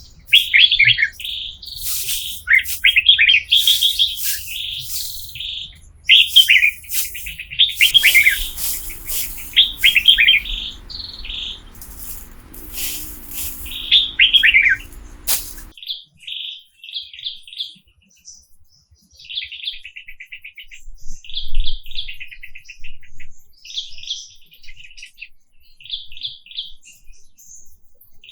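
Wild birds singing: loud, repeated falling chirp phrases, over a low steady hum that cuts off suddenly about halfway through. Short buzzy trilled chirps follow.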